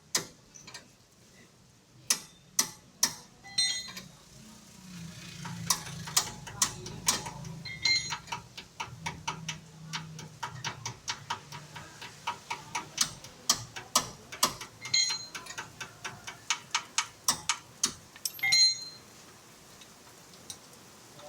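Repeated sharp metallic clicks and clinks of hand tools working on metal parts, irregular and a few a second, some with a short ring. A louder knock comes near the end.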